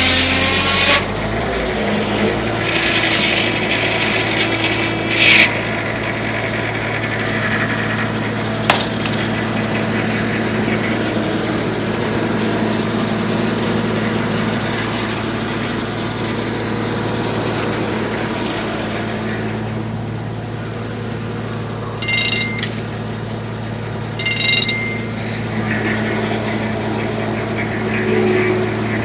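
Homemade circular sawmill running under steady power, its blade working through a log with a constant low machine hum. There are a couple of sharp knocks early on, and two brief high-pitched squeals about two and a half seconds apart near the end.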